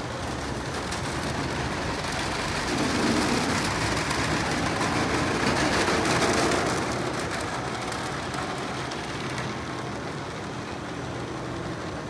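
Peco wrap brush spinning its long cloth strips against the front and hood of a pickup truck, rubbing in polish: a dense swishing slap of cloth on the body that builds to its loudest a few seconds in and then eases.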